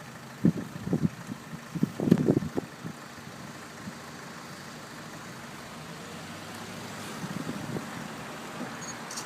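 Car engine running steadily at low speed, with a few indistinct words in the first three seconds.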